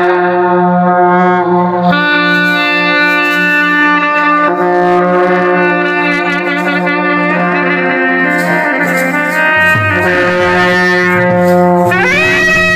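Brass band with saxophone, euphonium and trumpets playing loud, long held notes over a steady low note. Near the end the notes climb into a higher phrase.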